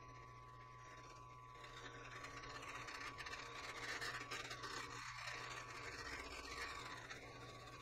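Benchtop milling machine running with a face mill: a steady motor hum and whine, with a scraping hiss that builds from about two seconds in as the cutter takes a pass across the workpiece, easing a little near the end.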